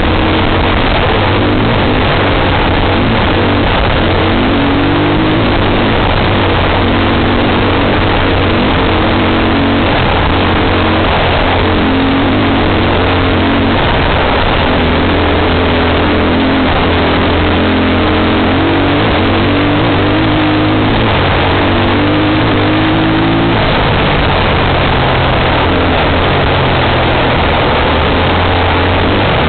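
Off-road vehicle's engine running hard along a dirt track, its pitch rising and falling as the throttle opens and eases, under a constant loud rush of wind and road noise.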